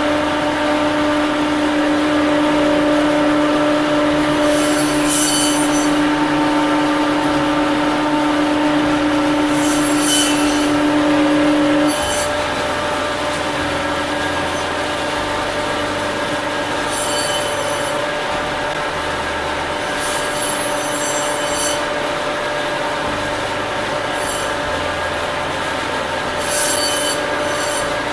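Butcher's band saw running steadily while cutting a goat carcass into small bone-in pieces, with short high screeches several times as the blade bites through bone. The steady hum underneath steps down about twelve seconds in.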